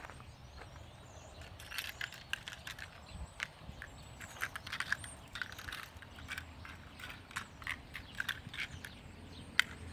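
Scattered, irregular small clicks and clinks as dropped screws and nails are picked up off the ground by hand, starting about two seconds in.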